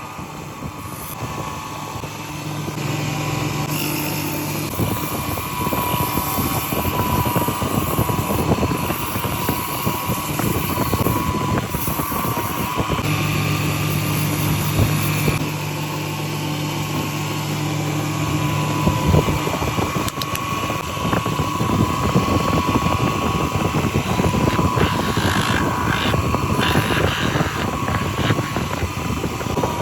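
Electric power tool running steadily while shaping wood, with a rough scraping noise from the cutting and a deeper hum that comes in near the start and again about midway.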